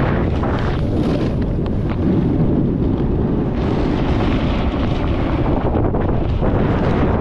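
Wind rumbling on the action camera's microphone while snowboarding down a snowy slope, with surges of hissing as the board carves and sprays snow through each turn.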